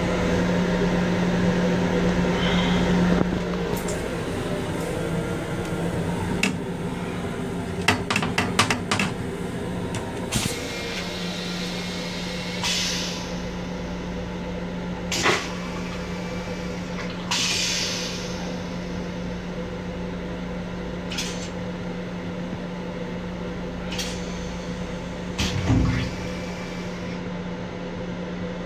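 Steady low hum inside a moving M7 commuter railcar's restroom, with a quick run of clicks about a third of the way in. In the second half the toilet flushes, with a few short hissing bursts of rinse water and a dull knock near the end.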